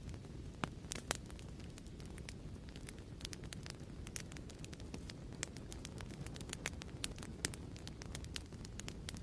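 Wood fire crackling in a fireplace, fairly quiet: irregular sharp pops and snaps, several a second, over a soft low rumble of the flames.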